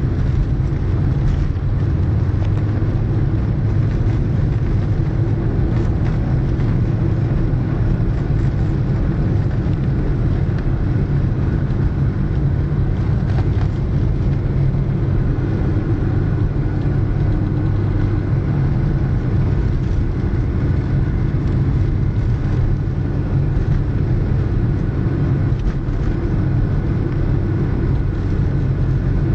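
VW Vento driving at a steady cruising speed on studded winter tyres: a steady low engine and road drone with the hiss of tyre noise, and a few faint ticks from the rough road surface.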